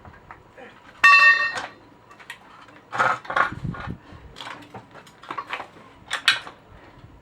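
Metal clinks and knocks of hand tools against disc brake parts, with a short, loud high-pitched metallic squeal about a second in.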